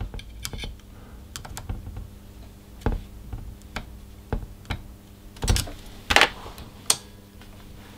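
Irregular light clicks and taps of screwdrivers working against the metal PTO drive and chassis of an IC201 transceiver during adjustment. A few louder knocks come in the second half, over a faint steady hum.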